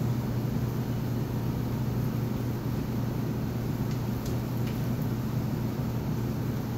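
Steady low mechanical hum of commercial kitchen equipment, with a few faint clicks about four seconds in.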